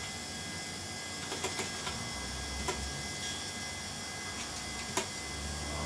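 A few scattered computer keyboard key presses over the steady whir and hum of an opened-up Compaq Deskpro 6400 desktop PC running, its fan and hard drive spinning.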